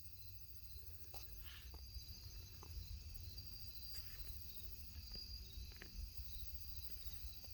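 Evening insect chorus: insects trilling steadily in several high-pitched bands, over a low rumble, with a few faint ticks.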